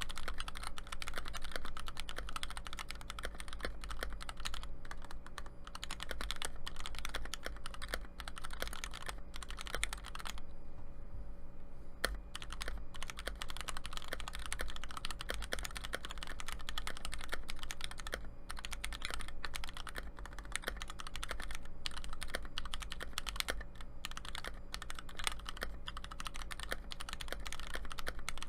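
Typing on a Tofu 60 mechanical keyboard fitted with Taihao ABS double-shot keycaps for Cherry MX switches: a fast, steady run of key clacks that pauses briefly about ten seconds in.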